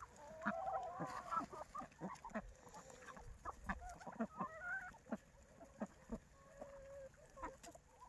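A flock of free-range hens clucking and calling as they crowd in to feed, many short calls overlapping, with scattered short taps and clicks among them.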